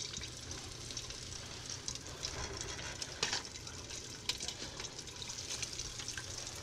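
Hot oil in a deep pot sizzling steadily as flour-dredged gar strips deep-fry, with sharp crackles popping here and there.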